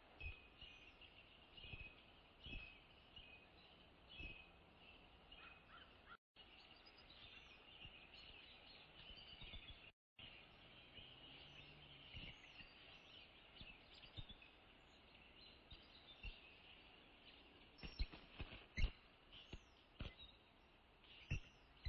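Faint chirping of small birds in the surrounding trees, with scattered low thumps, the loudest a few near the end. The sound cuts out completely twice for a moment.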